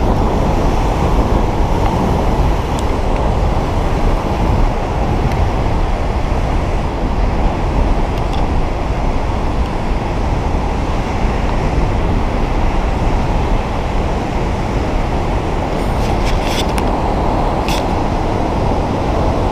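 Steady, loud roar of a waterfall and rushing water, with no break or change.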